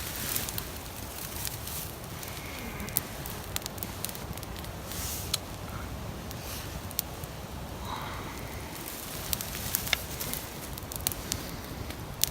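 Small wood campfire burning, crackling with irregular sharp pops.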